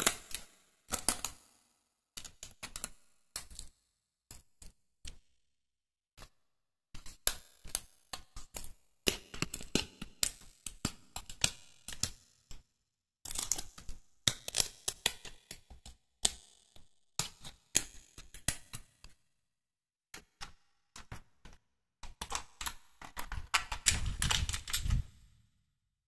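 Hands handling and pressing together printed 3D puzzle pieces: irregular clusters of small clicks, taps and scrapes with short pauses between, and a denser run of handling noise near the end.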